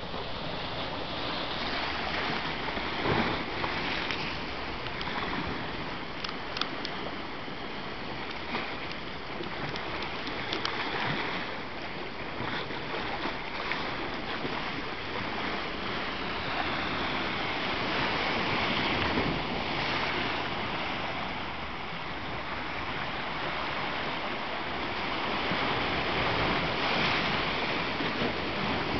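Sea surf washing and foaming around shoreline rocks: a steady rushing that swells and eases as the waves surge in and drain back.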